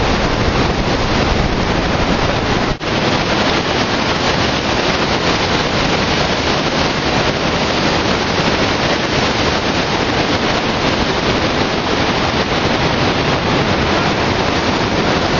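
Steady rush of whitewater pouring through a granite chute toward the lip of a waterfall, broken once very briefly about three seconds in.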